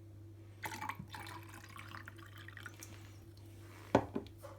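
Water poured into a plastic microwave steam cleaner, running and trickling for about two seconds, then a sharp knock a little before the end.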